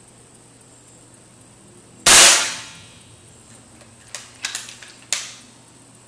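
FX Dreamline PCP air rifle firing a .22 24-grain slug: one sharp shot about two seconds in, fading over a fraction of a second. A few quick clicks follow from about four seconds in as the side lever is cycled to cock the rifle and load the next slug.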